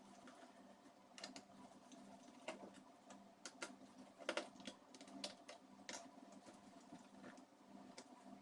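Faint, irregular clicks and taps of small tools and fingers on a laptop's case during disassembly, over a steady low hum.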